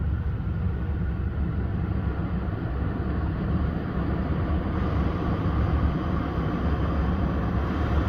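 Nissan Titan's 5.6-litre V8 idling steadily shortly after a start, heard from inside the cab as an even low rumble, with the steady rush of the climate-control fan over it.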